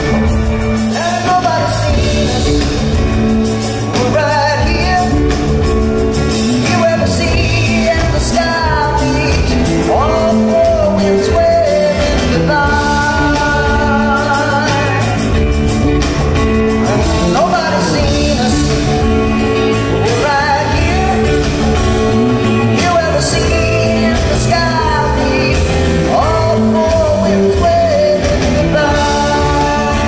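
Live band playing a country-rock ballad: acoustic guitar, electric bass, drums and congas, with a lead melody that bends and slides in pitch over steady chords.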